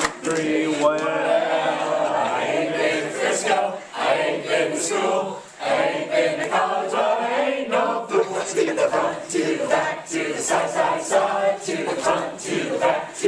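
Many voices chanting and singing together in a sing-song clapping-game rhyme, overlapping, with sharp hand claps scattered throughout and a brief lull a little past halfway.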